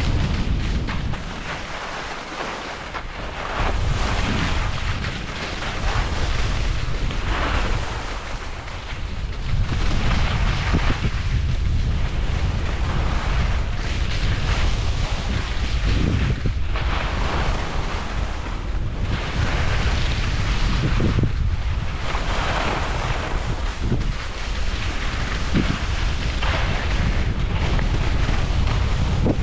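Wind rushing over the camera microphone while skiing downhill, a steady low rumble, with the hiss of skis scraping across chopped-up snow swelling and fading on each turn.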